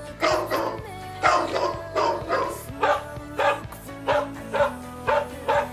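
Dog barking in a steady run of short, sharp barks, about two a second, over background music.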